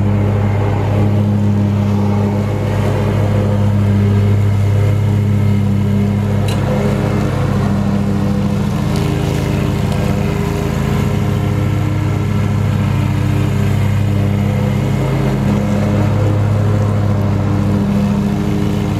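Zero-turn riding mower's engine running steadily as it drives across the lawn.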